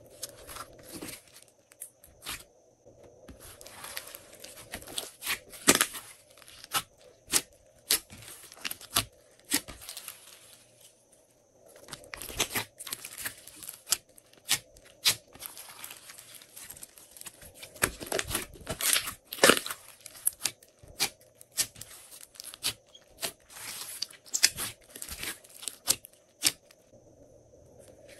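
Hands squeezing, stretching and folding a large lump of glossy slime, giving sticky crackles and sharp pops in quick clusters, with a short lull about midway.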